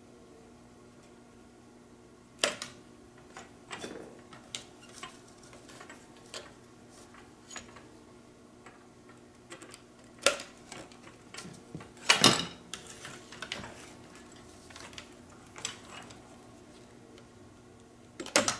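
Aluminium reflector rods of a GE 24792 attic antenna being press-fit into plastic holder strips by hand: scattered clicks and light metallic clatter, with the loudest knocks about two and a half, ten and twelve seconds in.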